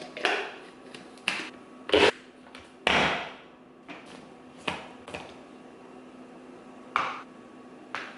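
Kitchen containers and utensils being handled on a counter: a series of about eight separate knocks and clatters, the loudest about two and three seconds in, over a faint steady hum.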